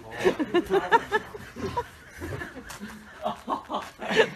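A person laughing in short chuckling bursts, loudest in the first second, with more chuckles near the end.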